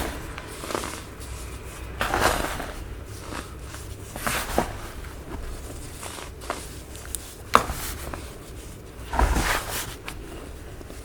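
Compacted baking soda crunching as it is crushed, a soft crunch about every two seconds with small crackles and one sharp snap between.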